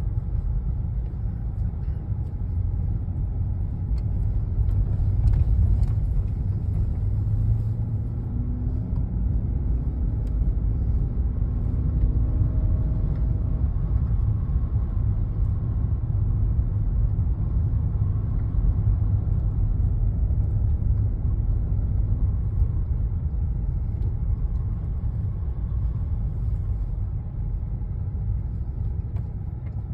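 Vehicle driving over a snow-covered road, heard from inside the cabin: a steady low rumble of engine and tyres.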